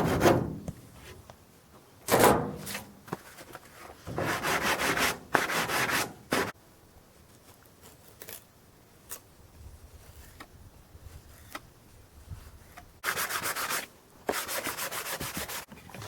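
Wood being sanded in separate bursts of a second or so each. There are a couple of sharp knocks near the start.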